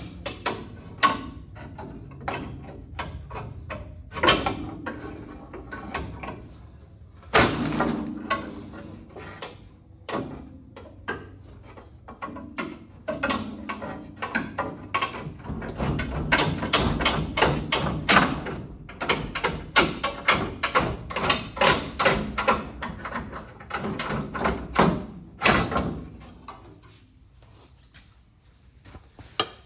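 Hand tools on car front-suspension parts: repeated metal clanks, knocks and rapid clicking as parts are worked loose, with a few sharp ringing strikes.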